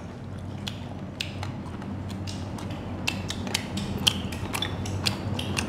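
Chopsticks clicking against porcelain plates and bowls while eating: a string of small irregular clicks with a few light clinks, over a steady low hum.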